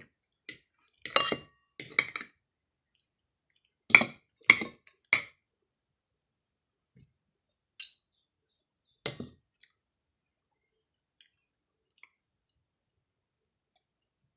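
Spoon and fork clinking and scraping against a plate as a meal of sausage and rice is cut and scooped. There are about seven short clatters over the first ten seconds, the loudest about four seconds in, then only faint ticks.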